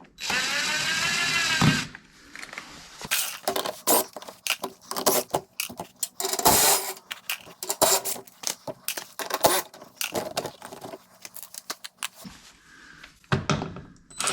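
A cordless power driver spins for about two seconds, its pitch rising and falling, as a fastener is run off the plastic splash guard. This is followed by a string of sharp clicks and rattles of tools and fasteners being handled, and the driver starts again near the end.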